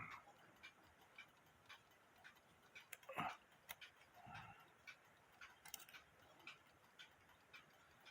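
Mechanical alarm clock movement ticking faintly and evenly, about two ticks a second, with a few soft knocks and rustles from the movement being handled.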